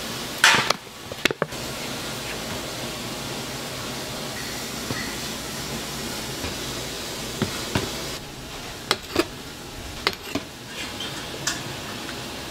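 Meat sizzling on a hot grill, a steady hiss, with several sharp clicks and clinks through it.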